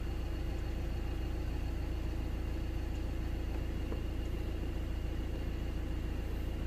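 2013 Ford Transit's turbo-diesel engine idling steadily, heard from inside the cab.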